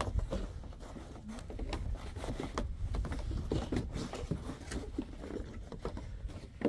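Footsteps crunching through fresh snow, an irregular run of short crunches and clicks over a steady low rumble.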